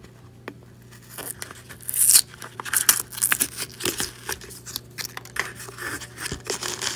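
Peel-off seal being ripped off the mouth of a plastic supplement bottle, with a loud tearing rip about two seconds in. Many short crinkling and scratching noises follow as fingers pick at the torn seal and the bottle's opening.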